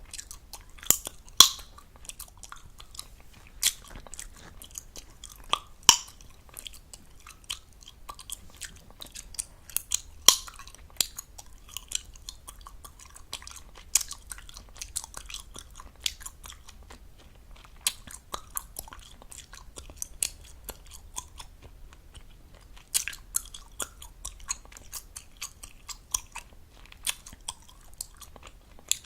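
Gum chewed fast and close to the microphone: wet smacking and clicking of lips and tongue, with a string of sharper, louder gum pops at irregular moments.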